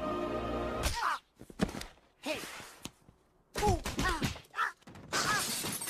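A music sting ends with a sudden cut about a second in. It is followed by short cartoon-character vocal sounds, brief squeaky grunts and sighs, mixed with thuds and whooshing noise bursts, as from an animated film's logo gag.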